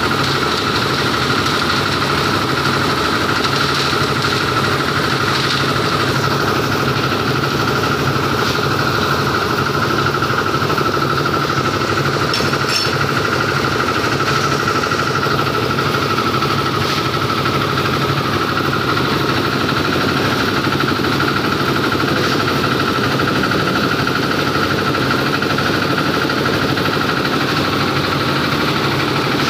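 Engine of a drum concrete mixer with a skip-loader hoist running steadily, with a constant hum and a dense mechanical rattle.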